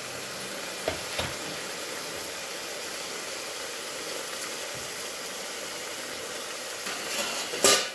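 Mutton frying in hot oil in an open pressure-cooker pot: a steady sizzling hiss, with two small clicks about a second in. Near the end a sudden loud burst of sizzle as chopped tomatoes go into the hot pot.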